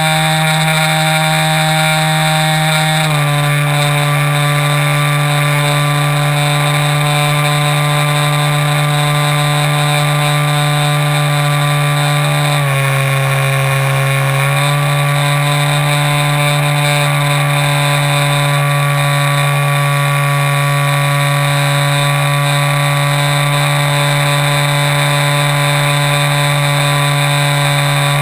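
Multiplex Xeno RC airplane's electric motor and propeller running in flight, heard up close from the airframe: a steady pitched drone that drops slightly about three seconds in, dips lower for about two seconds near the middle, then comes back up.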